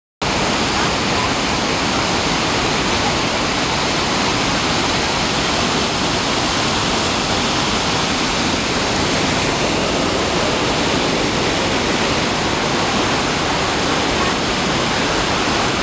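Waterfall: water pouring and splashing with a constant, even rush.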